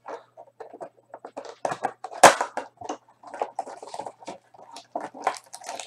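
Crinkling and tearing of a trading card pack's foil wrapper as it is opened and handled: irregular crackles, with one sharp, louder snap a little over two seconds in.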